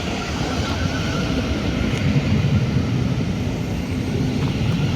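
Train running, a steady low rumble.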